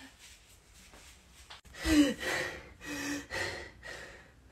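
A woman panting in quick, heavy gasping breaths, about five in a row, starting about two seconds in.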